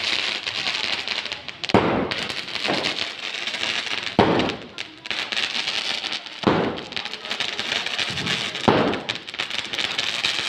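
Metro 'Laser Show' 12-shot crackling aerial firework cake firing: four shots about two seconds apart, each launch followed by a dense crackle from the bursting crackling stars.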